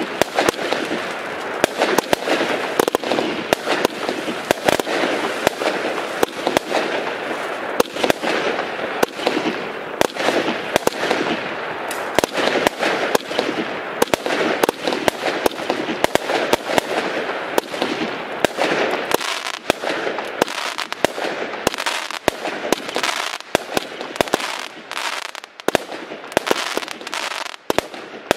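Compound firework cake firing continuously: a dense run of launch shots and bursting shells over a steady crackling hiss. In the last third the deeper sound fades and sharp separate cracks stand out.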